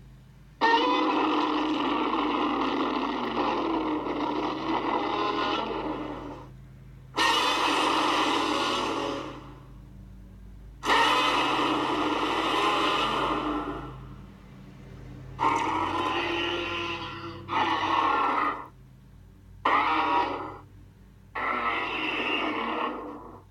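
Godzilla roar sound effects, mixed from MonsterVerse, Millennium and Heisei Godzilla roars. There are seven roars: the first is long, about six seconds, and the later ones are shorter and come closer together near the end, over a steady low hum.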